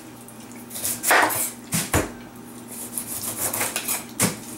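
A knife cutting through the rind of a whole pineapple on a wooden cutting board. A few crisp cuts and knocks of the blade and fruit against the board, the strongest about a second in and near the end.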